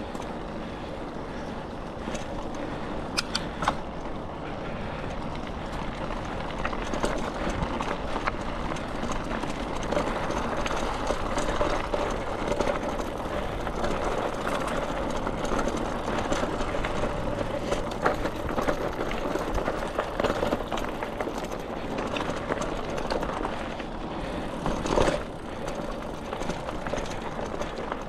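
Bicycle being ridden on a dirt trail: steady tyre and wind noise with frequent clicks and rattles from the bike over rough ground, and a louder knock near the end.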